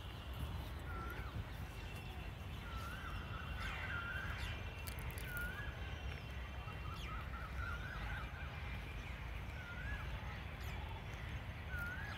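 Birds calling in a park: short rising-and-falling chirps that repeat every second or two, sometimes in quick runs. A steady low rumble sits underneath.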